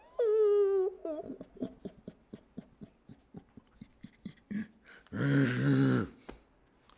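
A person's voice making sounds without words: a held, fairly high note just under a second long at the start, then soft irregular clicks, and about five seconds in a loud, rough, low vocal sound lasting about a second.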